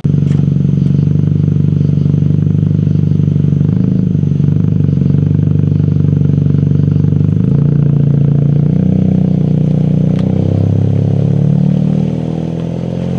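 A car engine running with a steady low drone whose pitch shifts up and down several times, easing off a little near the end.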